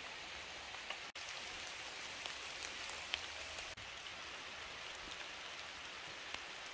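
Rain falling steadily: a soft, even hiss with faint, scattered ticks of single drops. It drops out for a moment about a second in.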